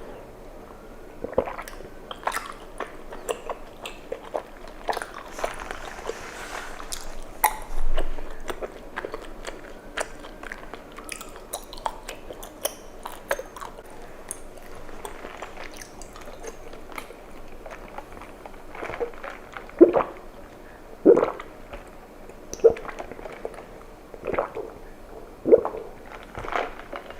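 Close-miked chewing of bubble tea's tapioca pearls, with many small wet, sticky mouth clicks. From about two-thirds of the way through, louder mouth sounds come about once a second.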